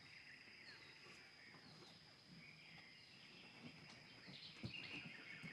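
Faint woodland ambience: scattered bird chirps over a steady, high-pitched insect drone.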